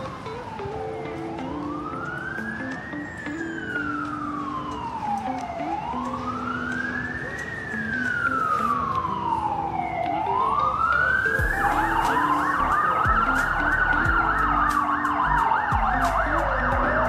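Emergency vehicle siren wailing, slowly rising and falling about every four and a half seconds. About two-thirds of the way through, a second, much faster yelping siren and a low rumble join it, and the sound grows louder.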